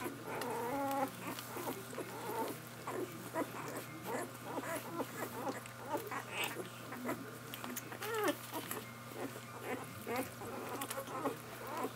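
One-week-old puppies suckling from their mother: a continual wet smacking and clicking of nursing, with a few short squeaks and grunts as they jostle at the teats.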